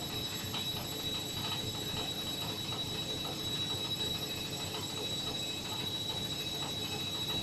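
Front-loading washing machine running: a steady low rumble with a thin, steady high-pitched whine over it.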